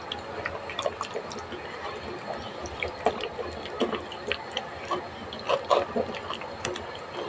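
Wet squelching and squishing of a bare hand kneading raw chicken pieces in a thick spice-paste and oil marinade in a steel bowl, in irregular short squelches, a few of them louder about five and a half seconds in.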